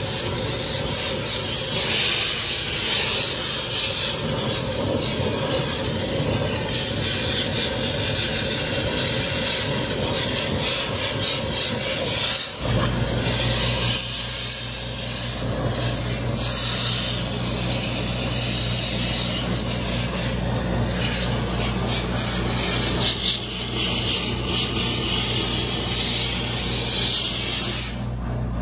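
Oxy-fuel torch flame hissing steadily while it melts casting metal in a crucible. About halfway through, a steady electric motor hum starts and keeps running; near the end the torch hiss drops away as the flame is pulled off the metal.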